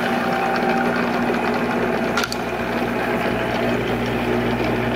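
Monarch 10EE lathe running, its spindle and gear train turning with a steady mechanical hum and a rough, busy texture, and a single click about two seconds in.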